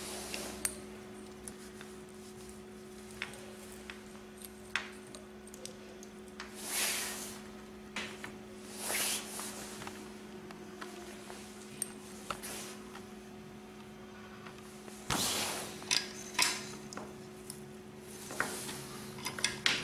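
Handling noise from wiring capacitors and twisting wire strands by hand on a table: scattered small clicks and short rustling swishes, over a steady low hum.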